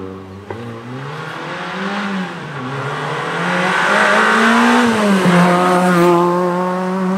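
Rally-prepared first-generation Renault Clio's four-cylinder engine revving up and down through the gears as the car approaches and passes close by, getting louder. After a gear change about five seconds in it holds one steady note.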